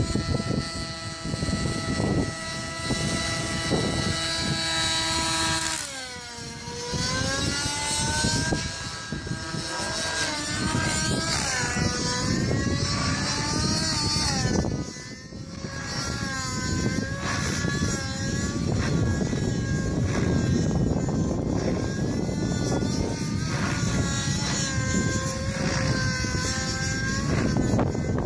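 Nitro-engined model helicopter (TSA Infusion 600N) running in flight, its engine and rotor tone holding steady at first, dropping sharply about six seconds in, then swinging up and down in pitch again and again.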